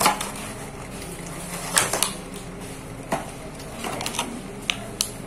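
Electric fan running with a steady hum, while a plastic faucet water filter and its packaging are handled: several sharp clicks and knocks, the loudest right at the start and about two seconds in.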